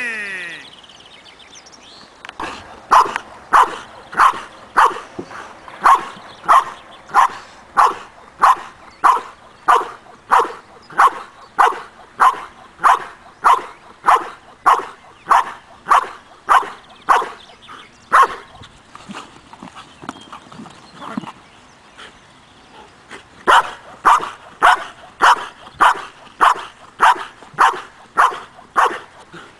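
A dog barking loudly and rhythmically, about one and a half barks a second, at a man approaching the object it is guarding, as in the ring object-guard exercise. The barking stops for about five seconds past the middle, then starts again at the same pace.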